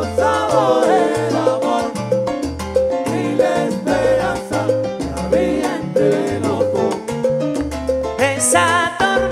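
Live salsa band playing a song: a bass line in held notes under steady percussion, with melodic lines over it.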